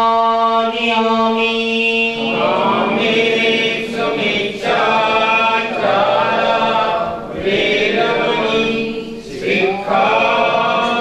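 Buddhist devotional chanting: a single male voice holds a long steady note, then from about two seconds in a group of voices chants together in unison.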